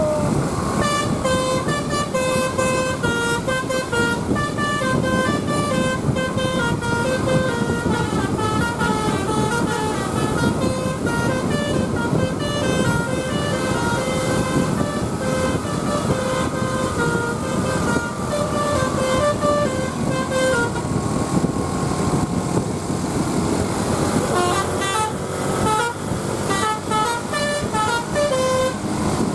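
Bus's basuri telolet horn playing a fast melody of short, stepped notes over a steady engine and road rumble. The tune stops for a few seconds about two-thirds of the way through, then starts again near the end.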